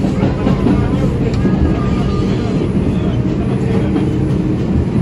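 An R142 subway train running along the track, heard from inside the car: a steady rumble of wheels on rail and running gear, with faint higher tones coming and going above it.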